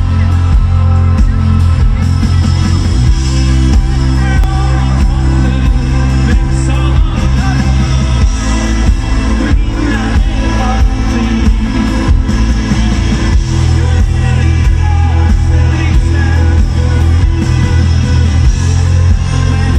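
Indie rock band playing live through a loud festival PA: drums, bass, guitars and keyboards, with singing, the bass heavy.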